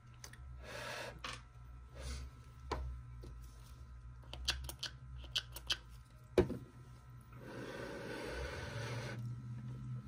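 Handling noises from a small plastic RC truck body and a bottle of CA glue being worked on the bench: soft clicks and taps, a sharper knock about six seconds in, and a hissing rustle of about two seconds near the end.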